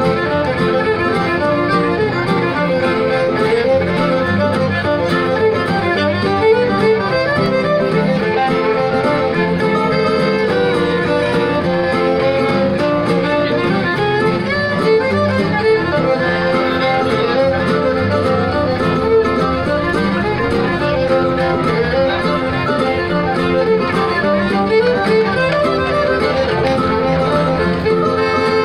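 Live fiddle tune: a fiddle carries the melody while two acoustic guitars strum the rhythm behind it, played through stage microphones and speakers.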